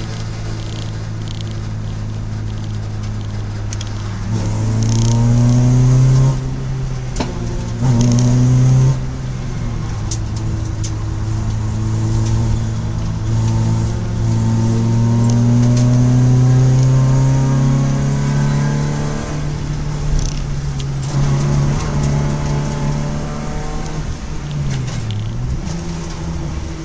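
Citroën Saxo track car's engine, heard from inside the stripped cabin, pulling hard through the gears. Its pitch climbs and drops back at each shift, loudest about five and eight seconds in, then holds a long steady climb before easing off and dipping near the end.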